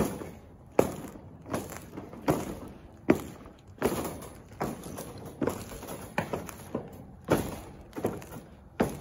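Footsteps of a person walking at an even pace, about a dozen steps, one every three-quarters of a second.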